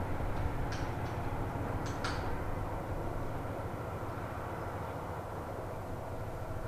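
Diesel train running along the line, a steady low engine and wheel rumble that slowly fades, with a few brief high metallic clicks in the first two seconds.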